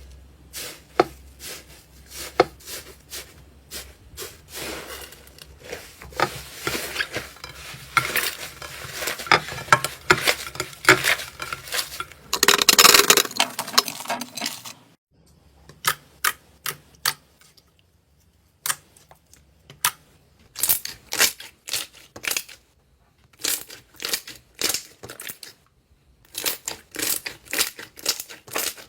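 Slime being squished and handled, making a dense run of sticky crackles and pops, with a louder crackling stretch about twelve to fourteen seconds in. After a short break about fifteen seconds in, the pops come slower and further apart.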